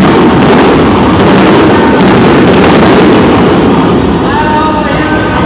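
Aerial fireworks bursting so thickly that the bangs run together into one continuous loud rumble, easing a little near the end.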